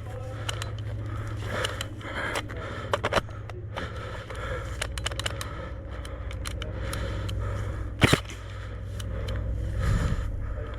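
Handling and movement noise from a player moving through a building during an airsoft game: a steady low rumble with scattered small clicks and scrapes. One sharp, loud crack comes about eight seconds in.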